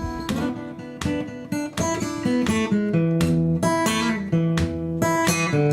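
Background music: acoustic guitar being strummed and picked.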